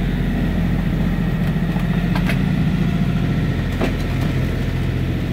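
Yacht's inboard engine ticking over, a steady low drone, with a couple of brief knocks about two and four seconds in.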